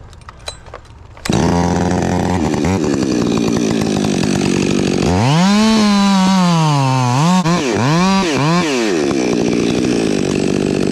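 Chainsaw starting about a second in and idling. About five seconds in it is revved up, its pitch rising and dipping several times as it cuts into the dead white oak, then it drops back to idle near the end.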